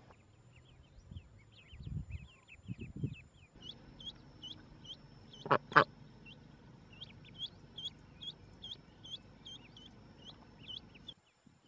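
Ducklings peeping, a quick run of many short high chirps, with a hen duck quacking twice loudly about five and a half seconds in. A few low thuds come in the first three seconds.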